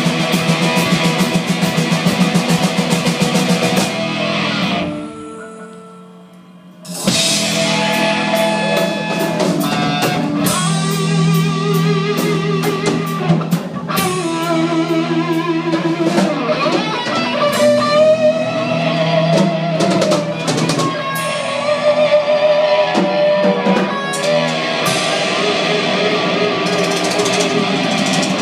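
Live rock band with electric guitars and a drum kit playing loudly. About five seconds in the band drops almost out, then comes back in full about two seconds later.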